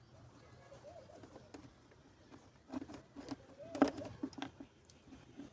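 A few faint, scattered clicks and light knocks of a hand wrench working on the engine's 10 mm bolts, the sharpest click a little before the four-second mark.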